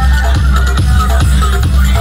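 Loud electronic music with heavy bass and a steady, fast beat, played through a large DJ sound-system rig.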